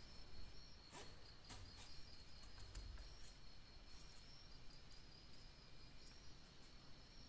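Near silence: a faint, steady, high-pitched pulsing trill, with a few faint clicks about a second in.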